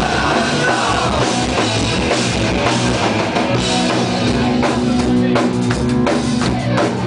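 Hardcore punk band playing live: distorted electric guitars, bass and drum kit at full volume, with a string of sharp drum hits in the second half.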